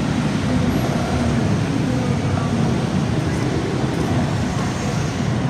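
Steady road-traffic din on a busy city street, with voices blended into it.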